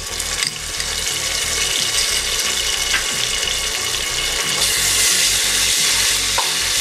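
Ginger-garlic paste sizzling in hot oil with fried onions in an open pressure cooker. The sizzle grows steadily louder and is strongest near the end.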